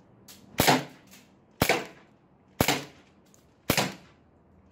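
Green-gas non-blowback airsoft pistol, an M92 replica, firing single shots: four sharp pops about a second apart.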